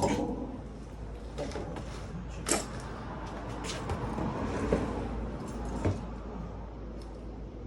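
Metal parts being handled on a dirt-bike wheel taken off for a bad bearing: about half a dozen separate knocks and clinks, with some scraping and rustling in between.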